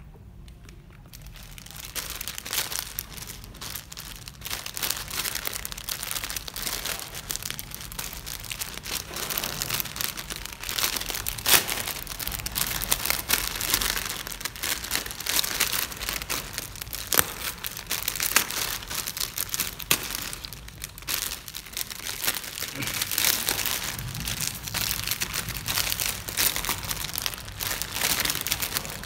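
A thin clear plastic bag crinkling and rustling as hands handle it and unwrap a shirt from it. The sound is an irregular crackle of many small crinkles that starts a second or two in.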